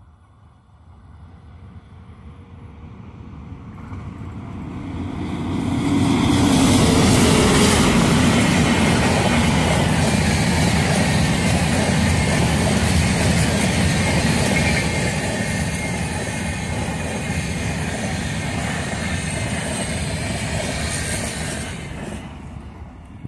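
Electric-locomotive-hauled passenger express train approaching and passing close by at speed. A growing rumble turns into loud, steady wheel and rail clatter as the coaches go past, with a brief falling whine as the locomotive goes by. The sound drops away quickly near the end.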